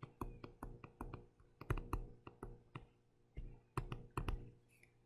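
Plastic stylus tip tapping and clicking on a tablet screen while words are handwritten. It is a quick, irregular run of light taps, with a short pause about three seconds in.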